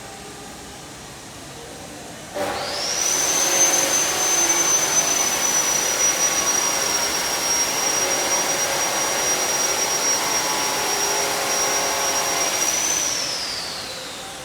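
A fast electric motor-driven machine starting about two seconds in with a loud rushing hiss and a high whine that quickly rises to a steady pitch. It runs for about ten seconds, then the whine falls and the sound fades as it winds down.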